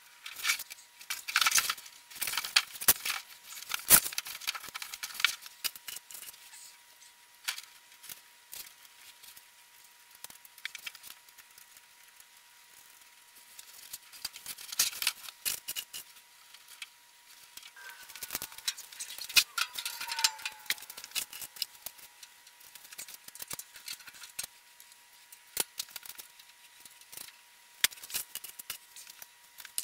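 Sheet-metal blast-cabinet panels and hardware clattering and clicking during assembly, sped up eight times so the knocks come as rapid, high-pitched clusters of ticks with little low end.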